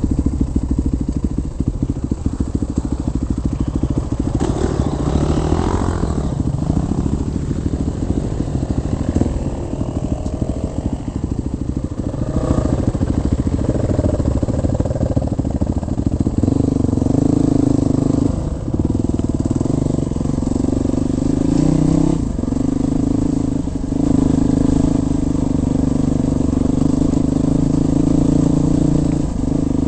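Trail motorcycle engines running close by, the revs rising and falling. About halfway through one engine note grows stronger and steadier, dipping briefly a few times.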